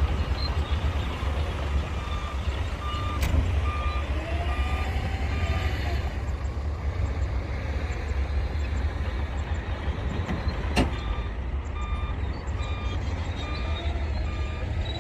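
Heavy diesel construction machine running with its reversing alarm beeping about twice a second, stopping for a few seconds in the middle and then starting again. Two sharp cracks cut through, one a few seconds in and one near the last third.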